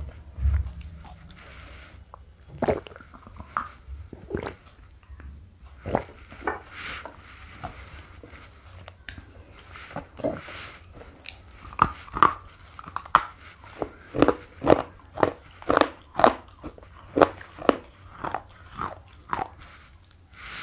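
Slate pencil being crunched and chewed. The crisp crunches are scattered at first, then come in a quicker, louder run of about two a second from about halfway in.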